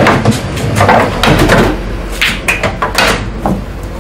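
Pool balls clacking: a one-handed cue stroke sends the cue ball into the object balls, with a series of sharp knocks as balls hit each other and the cushions, the loudest in the first second and around two seconds in.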